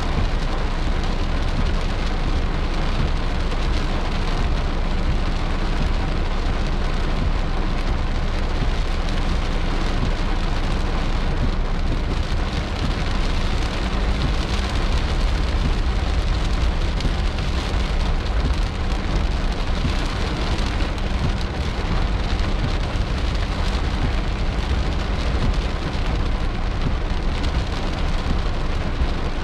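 Heavy rain falling steadily on a car's roof and windscreen, heard from inside the cabin as an even, unbroken hiss.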